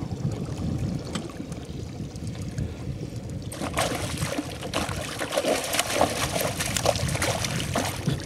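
Water splashing in quick, irregular bursts from about three and a half seconds in, over a steady low rumble.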